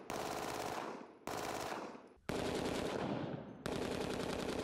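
A 9mm Glock pistol converted to fully automatic with an auto switch, firing four short bursts of rapid automatic fire, each about a second long, with brief pauses between.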